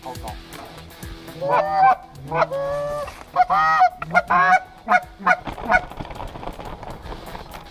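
Canada goose honking: a run of about seven honks starting about a second and a half in, the first few longer, the later ones shorter and quicker.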